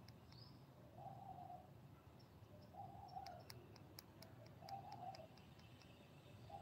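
Faint bird calls: a short hooting note, repeated about every two seconds.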